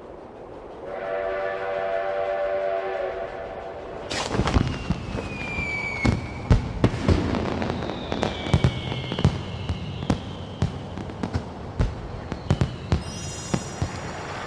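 A steam train whistle blows for about two and a half seconds, then a fireworks display begins: a run of sharp bangs, some with falling whistles, and crackling.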